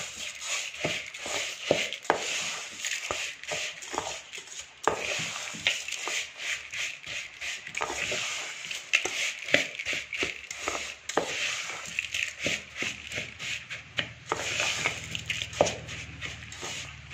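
Metal spoon stirring and scraping a dry, crumbly mixture of roasted sesame seeds and grains around a stainless steel bowl: continuous gritty rasping broken by frequent clinks of the spoon against the bowl.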